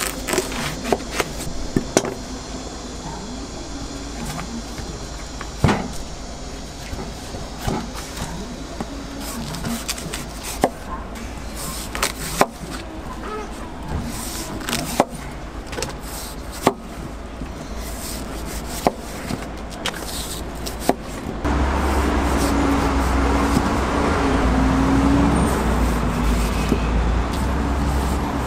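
A large kitchen knife paring the rind off a whole watermelon on a wooden cutting board, with sharp knocks at irregular intervals as the blade strikes the board. About three-quarters of the way in, a louder steady rumble with a low hum sets in.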